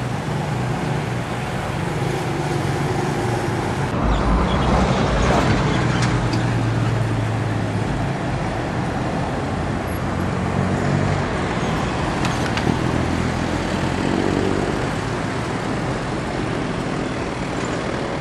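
Street traffic: vehicle engines running and passing steadily, with a louder low rumble from about four to seven seconds in.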